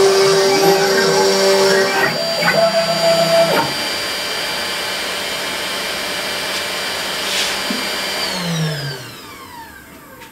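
SainSMART Genmitsu PROVerXL 6050 Plus CNC router milling a pocket in MDF: the spindle motor whines under load, with tones rising and falling as the head moves. After about three and a half seconds the cutting stops and the machine runs on more quietly and steadily. About two seconds before the end it spins down, its pitch falling and the sound fading.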